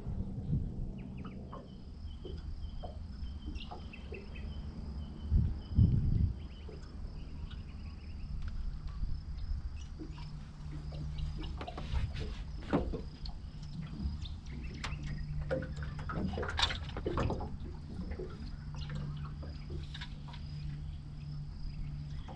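Water splashing and dripping, with scattered knocks and clicks of handling over a steady low hum and a faint high whine.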